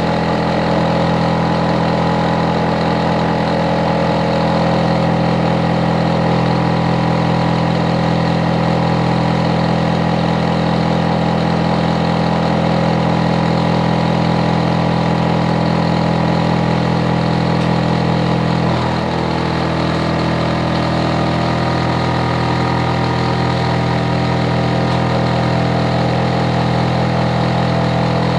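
Hitachi air conditioner outdoor unit running loud, a steady droning hum of its compressor and fan. About two-thirds of the way through, its tone shifts slightly with a brief dip, then settles again.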